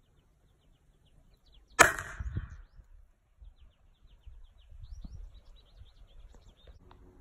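A single sharp shot about two seconds in from the Ishapore Enfield grenade-launching rifle, firing to launch a tennis ball, with a short ringing tail.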